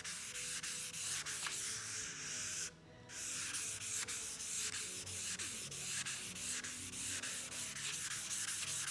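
600-grit wet sandpaper rubbed by hand in quick back-and-forth strokes over primer on a car roof, a steady wet rasping hiss that stops briefly about three seconds in. It is sanding out a small pinhole-like dimple in the primer.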